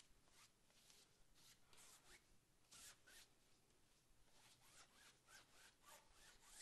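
Faint, irregular swishes of a 1-inch brush dragging a thin paint wash across primed canvas, barely above near silence.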